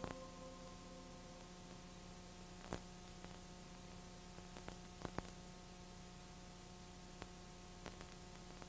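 Faint hiss and a steady electrical hum with a few scattered clicks, the soundtrack otherwise empty. Held music notes die away in the first second and a half.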